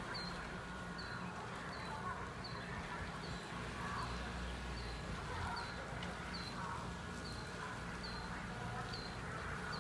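An insect chirping: a short high chirp repeating evenly, a little more than once a second, over faint outdoor background noise.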